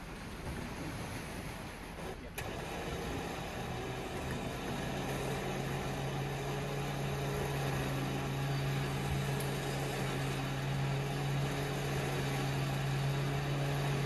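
An engine running steadily at idle, a low even hum that settles in about four seconds in.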